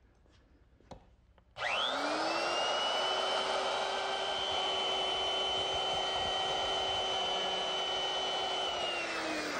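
Handheld electric router with a 1/4-inch round-over bit starting up about a second and a half in with a rising whine, then running steadily as it cuts a light rounded edge on a walnut rail. It is switched off near the end and its pitch falls as it winds down.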